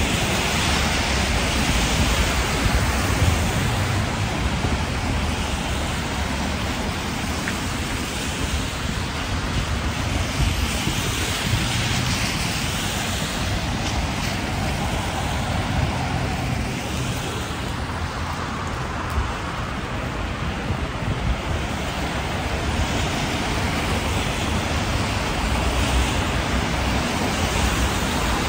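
Wet city street ambience: a steady hiss that swells now and then as cars pass on wet road, over a low, unsteady rumble of wind on the microphone.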